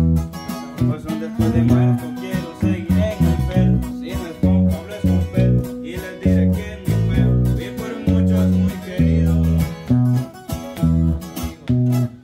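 Instrumental passage of a song played on plucked guitars over a rhythmic bass line, with no singing.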